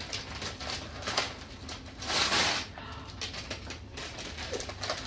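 Wrapping paper being torn and rustled as a present is unwrapped, in short scratchy bursts, the longest and loudest about two seconds in.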